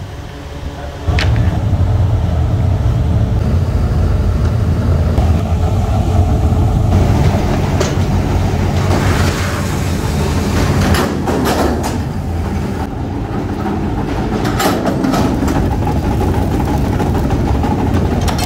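Heavy forging-shop machinery running with a steady low rumble, with a few sharp metal clanks in the second half.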